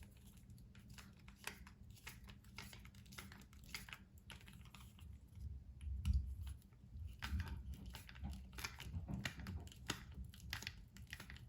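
Faint, irregular small clicks and scrapes of a screw being turned in by hand to hold the faucet cartridge parts in place.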